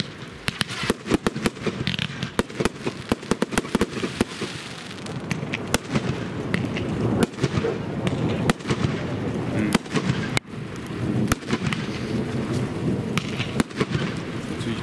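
Fireworks display going off: a rapid, near-continuous run of bangs and crackling, with a brief lull about ten seconds in.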